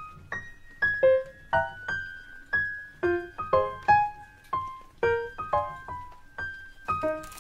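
Background piano music: single notes and small chords struck at a gentle pace, about two a second, each ringing out before the next.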